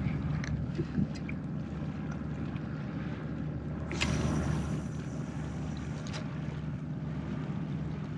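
Wind buffeting the microphone over the steady sound of a small boat on the water, with a low hum underneath and a few faint clicks. A louder gust of noise comes about four seconds in.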